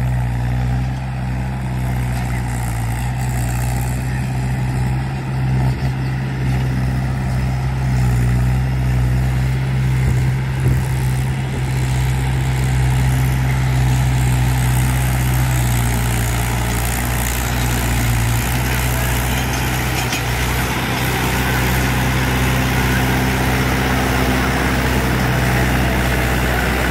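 Mahindra 575 DI tractor's four-cylinder diesel engine running steadily while hauling a loaded sugarcane trolley: a low, even drone that grows louder and rougher from about halfway through as the tractor comes close.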